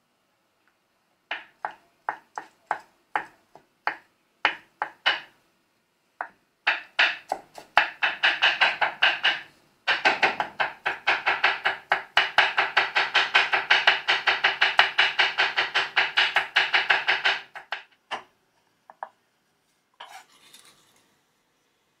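Chef's knife chopping onion and jalapeño on a wooden cutting board. It starts with slow single strikes, then runs into fast, steady chopping of about four or five strikes a second for roughly ten seconds. A few lone knocks and a brief scrape follow near the end.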